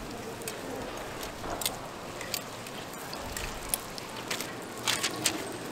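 Sorghum hotteok frying in oil on a flat steel griddle, a steady sizzle, with metal tongs clicking against the griddle and wire rack several times, the sharpest clicks near the end.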